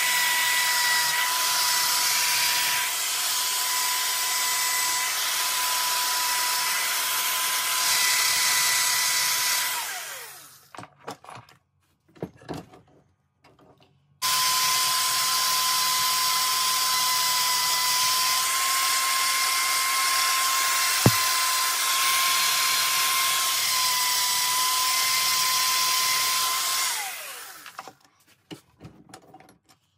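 Wire wheel on a handheld power tool brushing a copper ingot clamped in a vise: a steady high whine with a scrubbing hiss. It comes in two long runs, each winding down with falling pitch. In the pause between them, from about ten to fourteen seconds in, there are a few clicks and knocks.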